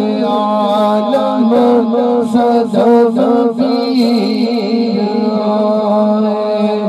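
A man singing a naat, an Islamic devotional song, in a chanting style into a microphone over a PA system. His voice rises and falls over a steady drone.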